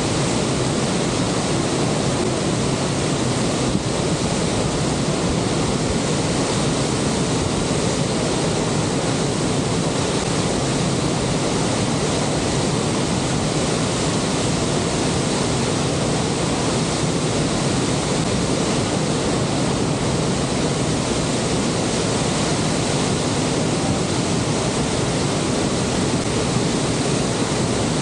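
Steady, unbroken rush of the Horseshoe Falls at Niagara: a great mass of water falling, heard as an even, continuous noise.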